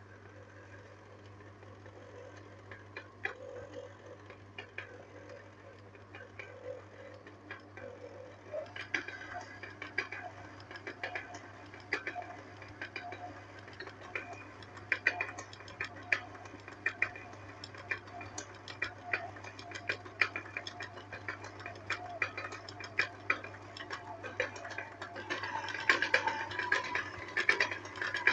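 Hands mixing semolina with warm water in a bowl and working it into a soft bread dough: irregular small clicks and slaps that grow busier after about eight seconds and are densest near the end.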